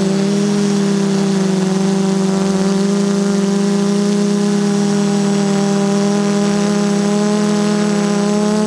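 DJI Flame Wheel F330 quadcopter's brushless motors and propellers humming steadily in flight, heard close up from the camera on its own frame, the pitch wavering only slightly.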